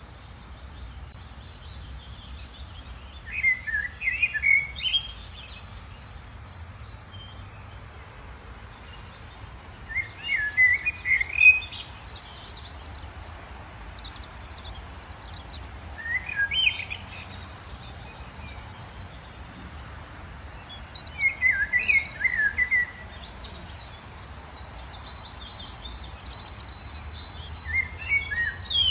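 A songbird singing short warbled phrases, five in all, roughly every five to six seconds, over a steady low background rumble.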